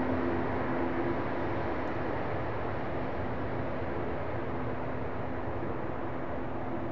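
Airbus A220-300's Pratt & Whitney PW1500G geared turbofan engines running: a steady jet rush with a low steady hum, slowly getting quieter.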